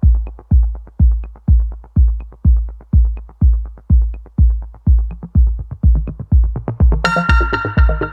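Electronic background music: a steady kick drum about two beats a second, with a bright synthesizer chord coming in near the end.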